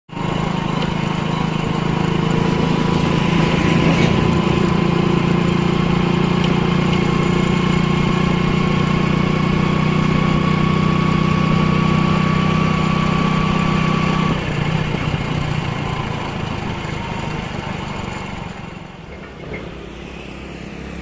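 Motorcycle engine running at a steady pitch while riding. About fourteen seconds in the steady note breaks off, and the sound grows gradually quieter as the bike slows.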